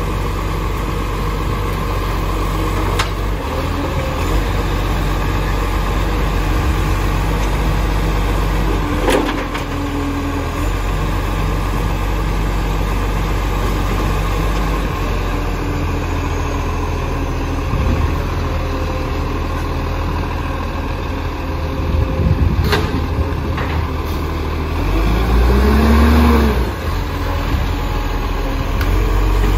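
Dennis side-loader garbage truck's diesel engine idling and creeping forward, with a few sharp clicks. About 25 seconds in it revs up briefly with a rising whine.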